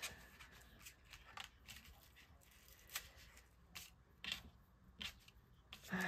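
Faint, scattered light clicks and rustles of a paper card and a cord being handled by hand as the cord is wrapped around the card and tied tight.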